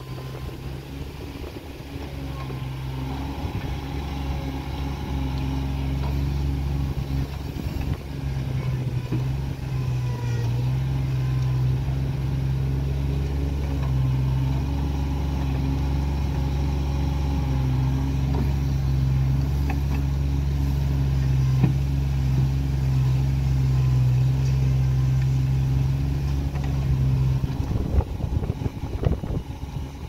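Komatsu PC30-5 mini excavator's three-cylinder 3D84 diesel engine running steadily under load while the arm and bucket dig soil. The engine builds up over the first few seconds and drops back near the end, where a few clunks are heard.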